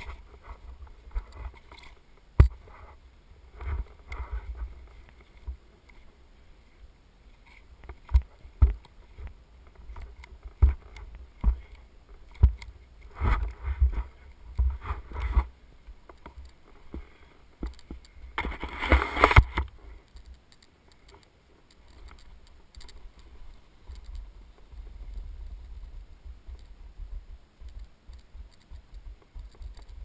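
Snowboard gear being handled while buckling into the bindings: scattered knocks, clicks and rustles, with a brief loud rush of hiss a little past halfway. In the last third the snowboard slides over snow with a low, steady rumble.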